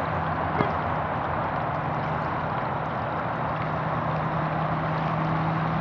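Steady rush of water in a backyard swimming pool, with a low steady hum underneath and one sharp click about half a second in.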